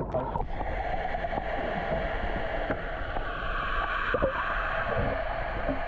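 Pool water heard through a submerged camera: a steady, muffled gurgling hiss of water and bubbles, with a few faint knocks.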